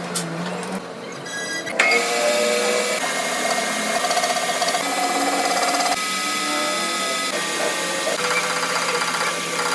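Machine tool cutting billet steel: a steady whine and hiss with several tones that shift every second or two, starting sharply about two seconds in after a brief rattle.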